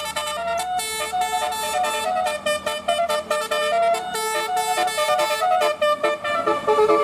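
Telolet multi-tone bus horn playing a quick tune of short notes that step up and down in pitch.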